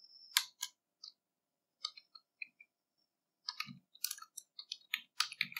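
Computer keyboard being typed on: scattered key clicks, a few at first, then a quicker run of keystrokes in the second half.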